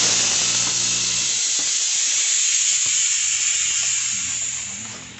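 Pressurized gas hissing steadily through a refrigeration manifold gauge set and hose on a window-type air conditioner during a leak test, fading out near the end.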